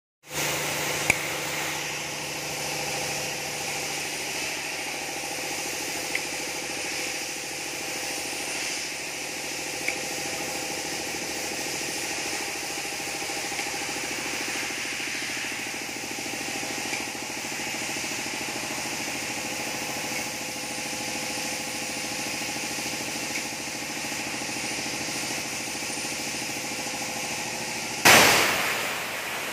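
Paint-spraying pump running steadily, a hum with several held tones under a continuous spray hiss. A few sharp clicks in the first ten seconds, and a loud burst of hissing about a second and a half before the end.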